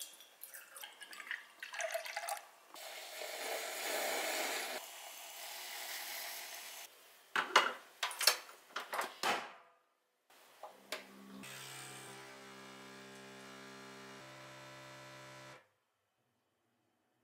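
Milk glugging as it is poured from a carton into a glass pitcher, then several sharp clicks of a capsule espresso machine's lever being opened and closed on a capsule. The machine's pump then hums steadily for about five seconds while brewing a shot of espresso, and cuts off suddenly.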